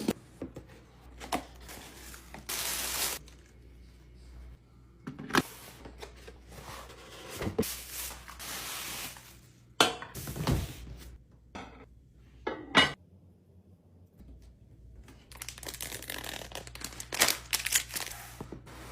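Household items being handled: scattered knocks and clicks, with several stretches of rustling and crinkling as of packaging being handled.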